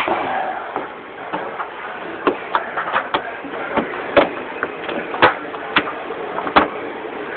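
Irregular light clicks and knocks of slide-out trim being worked and tucked behind the mounting bracket by hand.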